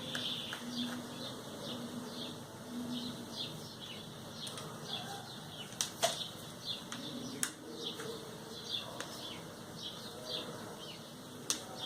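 Small sharp clicks and light scraping from a screwdriver working at the stripped screws of a Moto G2 phone, with the loudest clicks about halfway through and near the end. Quick high chirps repeat throughout.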